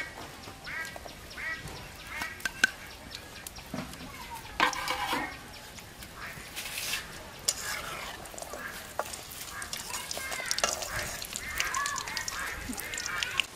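Lentil dumplings (bori) sizzling in oil in an iron karahi, with a few sharp knocks and a metal spatula stirring near the end. Ducks quack repeatedly in short calls throughout.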